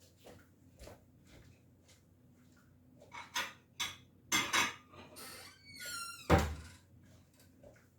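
Kitchen handling sounds as a cover is fetched and set over a bowl: a few knocks and scrapes, a short squeak falling in pitch, then a heavy thunk about six seconds in.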